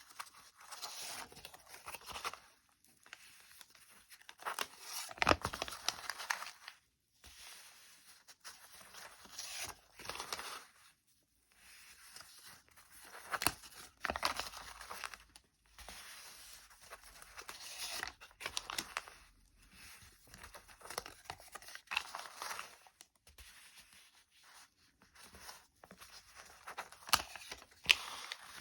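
A sheet of paper being folded and creased by hand, crinkling and rustling in repeated bursts with short pauses between folds, and a few sharper crackles as creases are pressed in.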